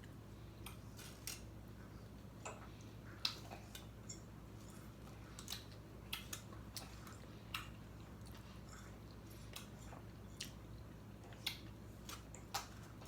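Eating sounds close to the microphone: chewing, with a dozen or so small scattered crunches and mouth clicks over a faint steady low hum.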